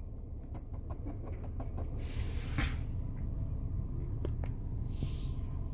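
Light clicks and taps of a finger on the plastic dashboard switches, with two brief rustles of handling, over a low steady rumble inside a car cabin.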